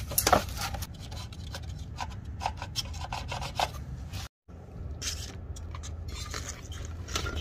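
Irregular rubbing and scraping with scattered clicks, over a steady low hum. The sound cuts out completely for a moment about four seconds in.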